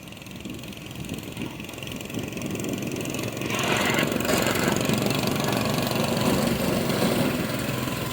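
Vintage 1961 Arctic Cat Boss Cat snowmobile's two-stroke engine running as the sled comes closer, getting louder and loudest from about halfway in. It is held short of full speed: the owner thinks he put the throttle cable in the wrong hole when fitting a new carburetor.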